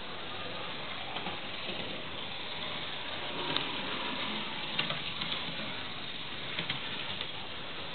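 A model diesel shunting locomotive running along its track: a steady electric-motor whir, with a few light clicks in the second half.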